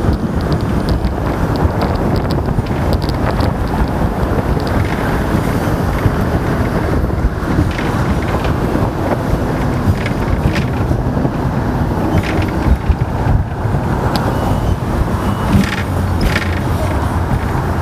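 Hong Kong tram running, a steady low rumble with occasional clicks and knocks, and wind buffeting the microphone.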